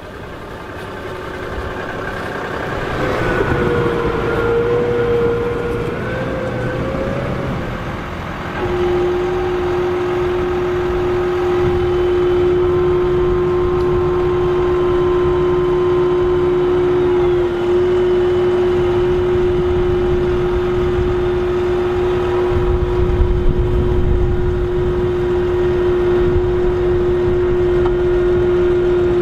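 Large farm-tractor diesel engines working hard in deep mud. For the first few seconds the engine note rises and falls. Then a Case IH Optum 300 pulling a loaded silage trailer holds one steady engine note for the rest.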